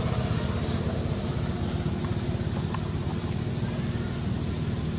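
A steady low rumble with a fine, rapid pulsing, like a motor running, and a couple of faint clicks about three seconds in.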